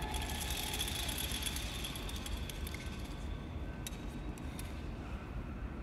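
Many police officers moving in unison in a drill, their gear making a mass of small clinks and rattles that die down after about three seconds. A few single clicks follow.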